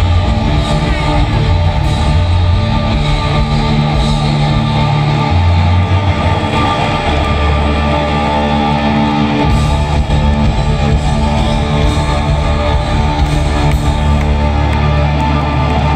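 Hard rock band playing live, with distorted electric guitars over bass notes that shift every second or two.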